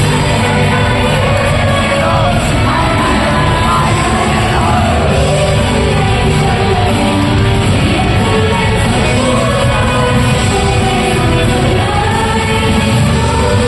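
Loud live pop music with singing from an idol group's performance over a hall sound system, with shouts from the audience.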